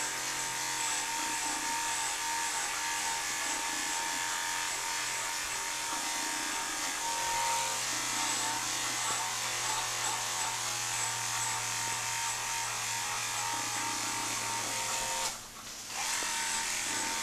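Cordless electric dog clippers running steadily while clipping a cocker spaniel's coat, with a brief drop in the sound about two seconds before the end.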